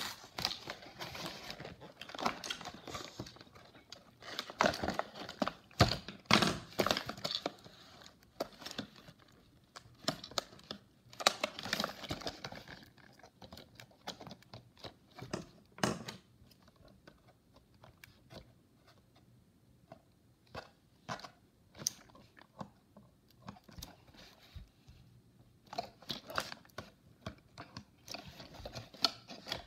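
Toy packaging handled by hand: cardboard box flaps torn and crinkled, with scattered clicks and knocks of the plastic toy and its cage. The rustling is busiest in the first dozen seconds, thins out in the middle and picks up again near the end.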